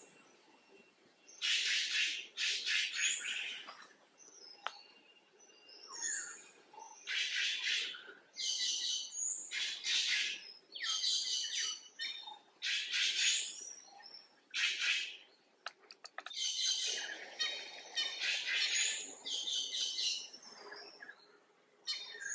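Birds chirping and chattering in a long series of high, short bursts, about one a second, with a brief lull partway through.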